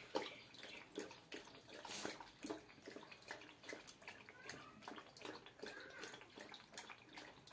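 Dog lapping water from a plastic bucket: a run of short, wet laps and splashes, about two or three a second.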